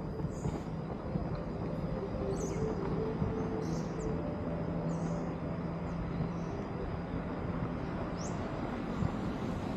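City park ambience: a steady rumble of traffic with a low engine hum that fades out about two-thirds of the way through, and short bird chirps scattered over it.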